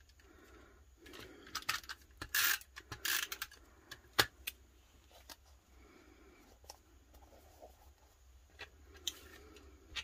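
Tape runner drawn in a few short scraping strokes across the back of a small die-cut paper cloud, then a sharp click and light rubbing of paper as the cloud is pressed onto the journal page.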